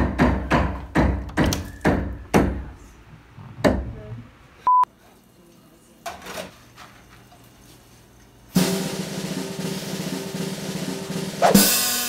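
Drum roll of rapid, evenly spaced drum hits that slows and stops after about four seconds, followed by a short single-pitch beep. About eight and a half seconds in, butter in a frying pan starts sizzling suddenly and swells louder near the end.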